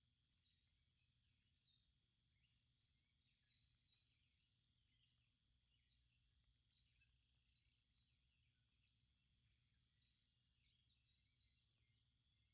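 Near silence: faint wild birds chirping in the woods, many short high chirps scattered throughout, over a faint steady hum.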